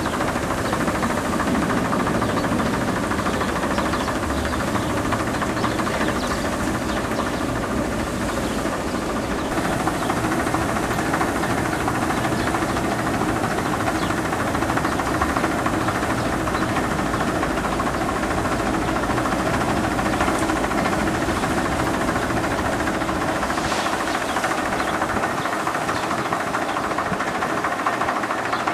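Steady mechanical hum with a hiss, running evenly without pause.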